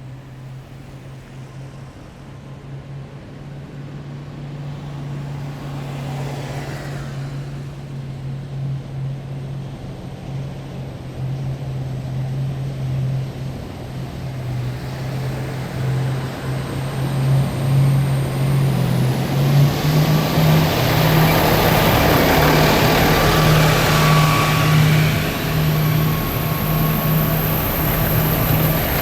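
Heavy military vehicles approaching on a street: a deep, steady engine drone that grows gradually louder and is loudest in the last third, with a high thin whine coming in over it.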